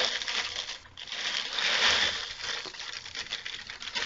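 Puffed rice (murmura) poured from a plastic bag into a kadhai of hot jaggery-sugar syrup: a rustling, crunchy pour that comes in two surges, the second the longer, then trails off.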